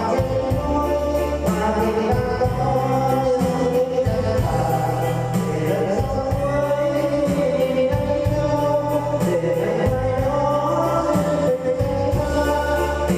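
A voice singing a slow song with long held notes over backing music with a steady bass line.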